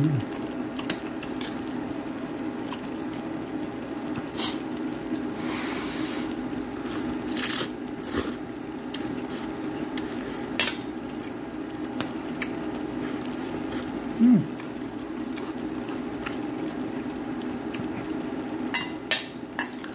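Eating noises at a pot of ramyeon: steel chopsticks clicking against the pot now and then, with slurping of noodles over a steady low hum, and a short hum of the eater's voice about two-thirds of the way in.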